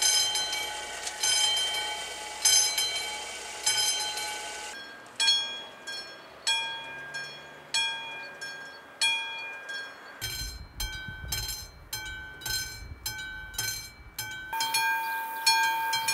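Level crossing warning bells ringing in repeated strikes, about one a second, changing in pitch and pace at several abrupt cuts. Near the middle a faster-ringing bell sounds over the low rumble of a passing train.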